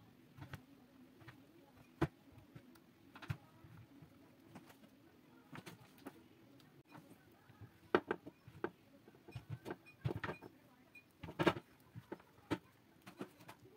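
A spatula knocking and scraping against a baking tray as cake slices are lifted out: scattered clicks and clinks, a sharp knock about two seconds in and a busier run of knocks and scrapes in the second half.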